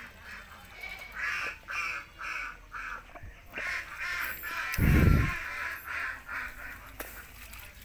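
Domestic fowl calling over and over in short calls, about three a second, in several runs. One low thump about five seconds in is the loudest sound.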